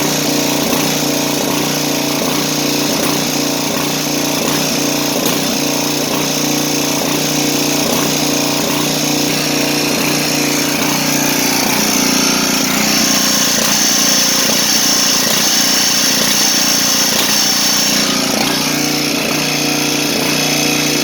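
Riding lawn mower's small gasoline engine running steadily, its speed picking up a little partway through and easing back near the end. The governor is cycling to hold the engine back, which the owner puts down to the throttle possibly being set slightly too high.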